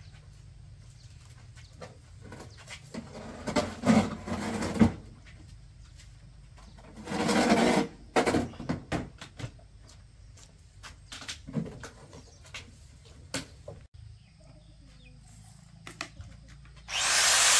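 Scattered knocks, clanks and short bursts of noise from work on a vintage car. Near the end the car's engine starts up suddenly and runs loudly.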